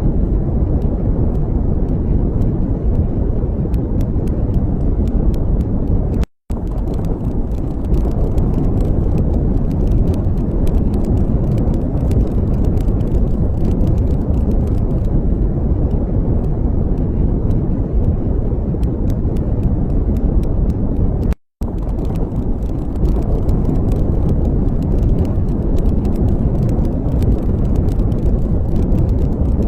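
Steady low rumbling noise with no clear tone, cutting out briefly twice: about six seconds in and again about twenty-one seconds in.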